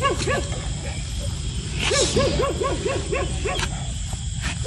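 Bully puppy whimpering in a run of short, rising-and-falling cries, about four a second, densest from about two seconds in, while it is held down to have its ears cropped.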